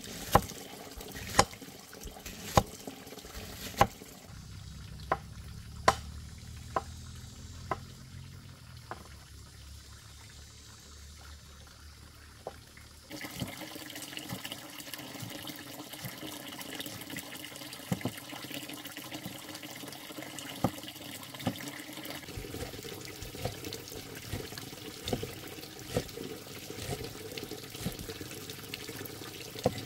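Sharp knocks about once a second, fading over the first several seconds. About thirteen seconds in, water starts running steadily from a tap, with small clicks and knocks of things being handled in the water.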